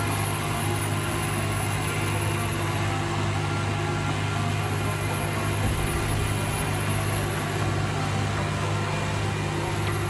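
Heavy road-works machinery running steadily: an even low engine drone with a thin high-pitched whine above it.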